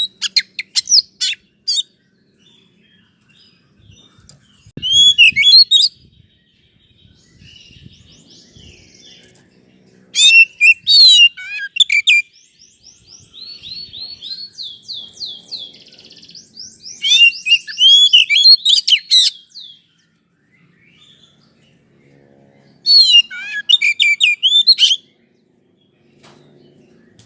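Oriental magpie-robin (kacer) song used as a trigger recording: loud phrases of varied, fast-gliding whistles and rapid trills, coming in bursts a few seconds apart.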